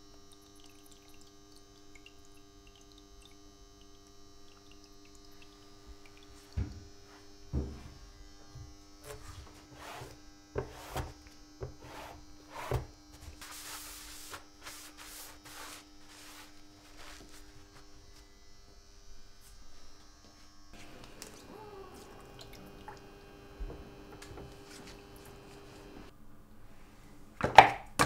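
Steady electrical hum, with scattered knocks, taps and a brief rustle as a sheet and a copper plate are handled in a workshop tray; one loud knock near the end.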